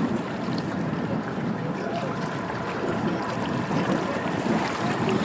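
Wind buffeting the microphone: a steady, rough, rumbling rush that swells and eases unevenly throughout.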